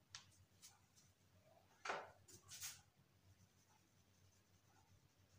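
A few short marker strokes squeaking on a whiteboard, the longest about two seconds in. Otherwise near silence.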